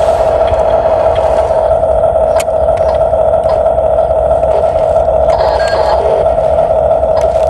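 Steady high whine of a radio-controlled toy construction machine's small electric motors and plastic-metal gearboxes running, holding one pitch, with scattered small clicks and knocks from the mechanism.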